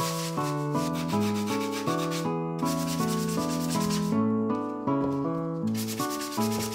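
Hand sanding of plywood panels with a sanding sponge: quick back-and-forth rubbing strokes that pause briefly a little over two seconds in and again for over a second after about four seconds. MIDI classical guitar music plays underneath throughout.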